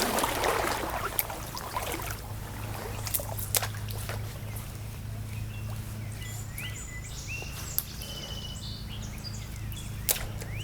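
Creek-side ambience: a short rush of splashing water noise at the start, a few scattered clicks, and small birds chirping in the second half, over a steady low hum.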